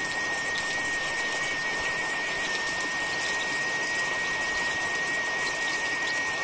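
Heavy rain pouring steadily onto palm fronds, potted plants and a gravel yard: a dense, even hiss. A faint steady high tone runs under it.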